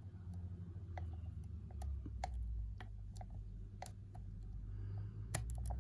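Faint, irregular metallic clicks and ticks of a steel hook pick probing the pin stacks of a Sterling euro cylinder lock held under very light tension, with a quick cluster of clicks near the end.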